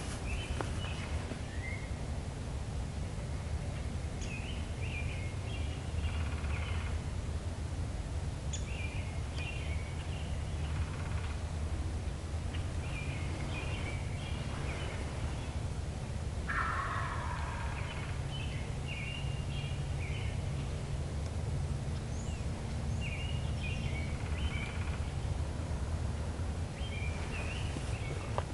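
Wild turkey gobbler gobbling: one loud rattling gobble a little past halfway, with a few fainter gobbles before and after, over steady low background noise.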